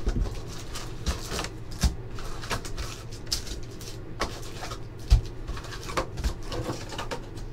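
Cardboard hobby box opened and trading card packs handled inside it: scattered rustling and light clicks and knocks.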